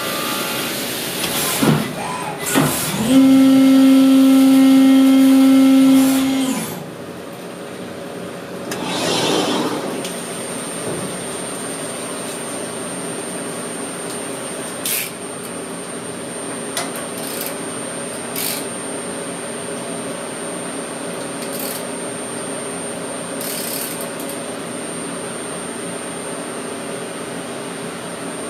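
Brother Speedio S700X1 CNC milling machine running under flood coolant. For the first several seconds it is loud, with a steady pitched whine. Then it drops off to the machine's steady hum, with a brief rush about nine seconds in and scattered light clicks.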